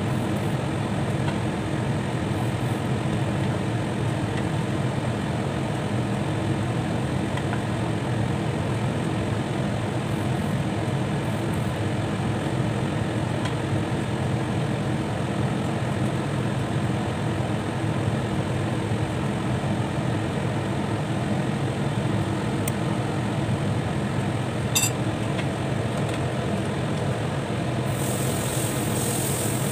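A steady low rumbling noise from a stainless steel pot of curry cooking on the stove, with one light metallic clink near the end.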